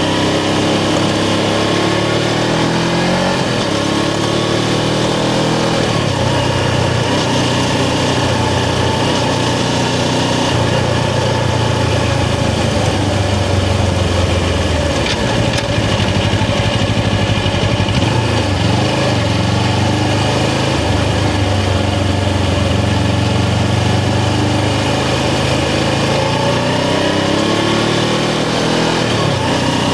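Suzuki GS500's parallel-twin engine running under way, its pitch rising as it accelerates in the first few seconds and again near the end, with steadier cruising in between.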